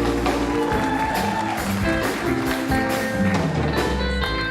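Live band playing a steady instrumental vamp, with a Fender Telecaster electric guitar playing lead over it.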